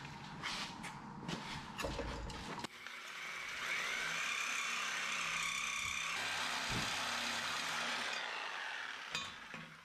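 Corded reciprocating saw cutting through a bicycle frame tube, running steadily for about six seconds and fading out near the end, after a few knocks as the bike is set in place.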